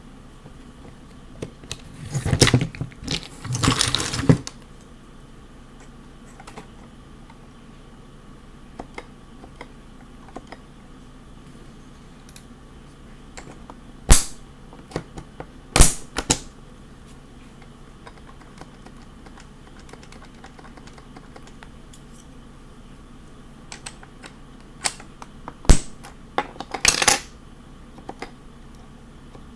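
Sparse single key clicks from an HHKB Professional 2 Topre keyboard, broken by three short bursts of loud clattering about ten seconds apart.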